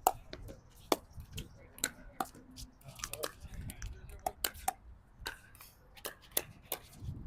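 Pickleball paddles striking a hard plastic ball during a rally: a string of sharp pops at uneven intervals, one to three a second.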